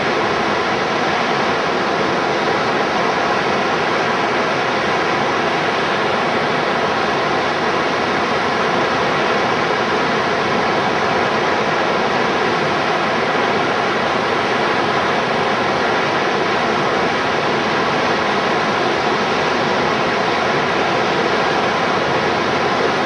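Steady rushing of river whitewater breaking over a standing wave in the current, with a faint steady hum underneath.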